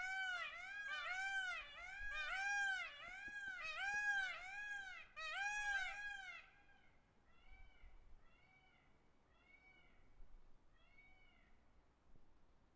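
A peafowl calling in a rapid series of short calls, each rising and then falling in pitch, about two a second. About six seconds in, the calls drop away to a much fainter run that goes on about one a second.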